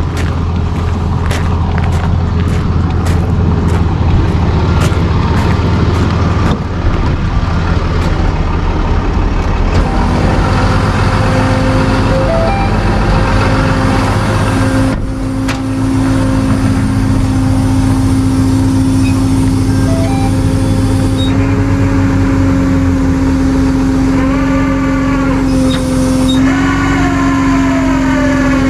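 Tow truck's engine running steadily, with a row of regular clicks for the first several seconds. A steady whine sets in about ten seconds in and holds.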